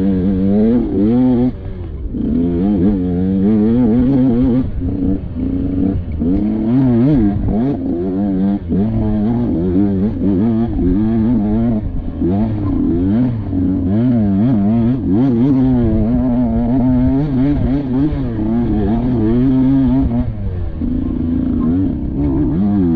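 Off-road dirt bike engine revving up and down over and over, the throttle opened and closed in quick, uneven bursts.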